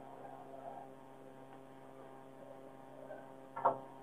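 Steady electrical hum, with faint handling sounds of a plastic gujiya mould being pressed shut and one sharp knock near the end.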